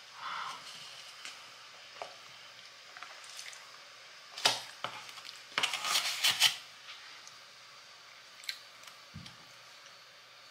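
Quiet sounds of someone eating a cookie from a paper plate: a few sharp clicks and rustles, loudest about four and a half seconds in and again around six seconds, with a soft low bump near the end.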